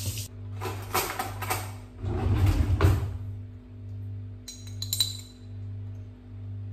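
Kitchen tap water running in short spurts, then a metal spoon clinking a few times against a glass jar of jerk seasoning, over a steady low hum.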